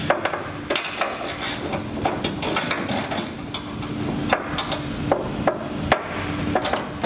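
Irregular sharp metal taps and clinks as a hand tool works the bolts at a wing panel's attachment fitting on a steel fixture stand, over a steady low hum.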